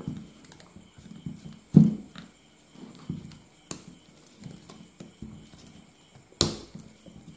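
Small screwdriver scraping and prying at the sealing label and plastic cell-cap strip on top of a 12-volt motorcycle battery: scattered light scrapes and clicks, with sharper snaps about two seconds in and again near the end.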